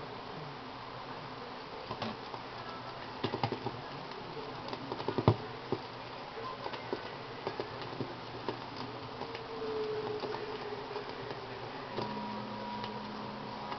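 Surface noise from a Magnavox portable record player playing a vinyl record: a low hiss with scattered clicks and pops from the stylus in the groove, and a faint steady tone coming in near the end.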